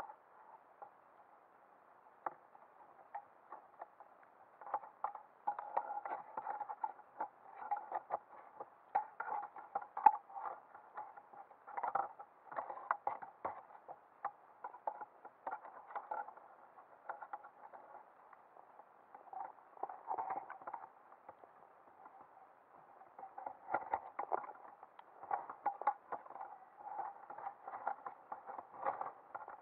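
Irregular underwater clicking and crackling, heard muffled through the camera housing and coming in bursts with short lulls, with one sharp louder click about ten seconds in.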